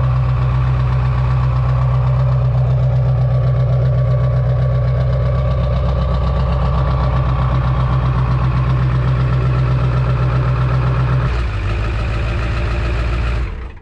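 Straight-piped diesel pickup engine idling steadily through an 8-inch exhaust stack, with a low, even pulse. The tone shifts about eleven seconds in, and the sound cuts off just before the end.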